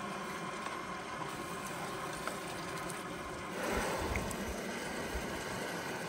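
Camp stove burner running at full flame, a steady hiss that swells about three and a half seconds in.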